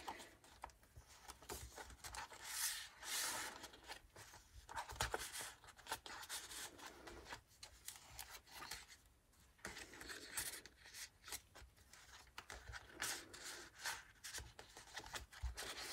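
Card and paper pages of a handmade junk journal being turned and handled, with faint, irregular rustling and rubbing of paper throughout.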